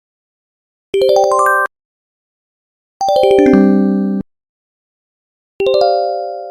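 Three short synthesized phone tones from a Samsung Anycall SCH-V330's built-in sound set, each in silence. About a second in there is a quick rising run of notes. About three seconds in, a falling run settles onto low notes. Near the end, a chime rings and fades out.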